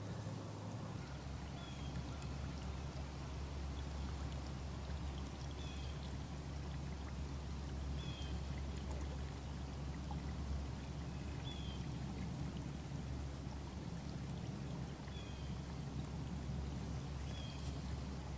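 Water rushing along the hull of a small boat under way, pushed by an electric trolling motor whose steady low hum strengthens about a second in. Short, faint, high chirps recur every second or two.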